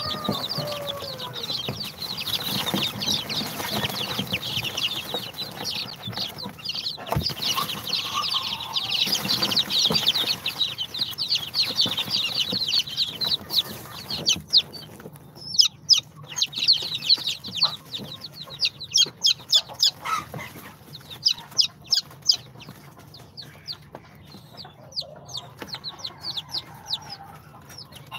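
A brood of day-old chicks (İspenç, Brahma, dwarf Cochin and Sultan) peeping together, a dense high-pitched chorus that thins about halfway through into separate loud peeps.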